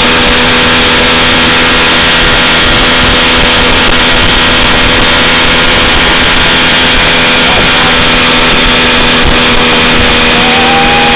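Evinrude 70 hp two-stroke outboard motor running steadily at speed, with the rush of the boat's wake.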